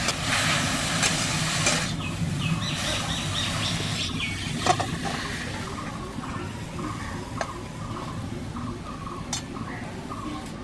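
Fried giant taro and kharkol leaves sizzling in a steel pan for the first two seconds. A bird then calls in short repeated notes, about three a second, while a metal spatula clinks sharply on the steel pan a few times as the leaves are scraped into a bowl.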